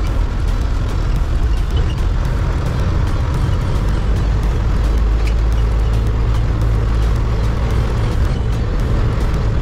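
A bus running along a narrow country road: a steady, loud low rumble of engine and road noise with no change through the stretch.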